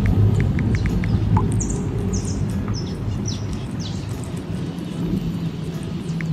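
Cats crunching dry kibble close to the microphone over a low rumble, with birds giving several short high chirps from about one and a half to three seconds in.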